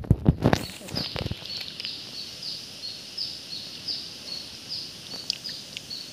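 A bird repeating short, high, falling chirps, about two a second, over a steady high hiss. Several loud, low thumps come in the first second or so.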